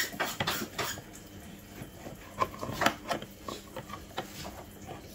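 Irregular clinks and knocks of kitchen utensils and containers being handled while a punch is mixed, with a few sharper knocks about two and a half and three seconds in.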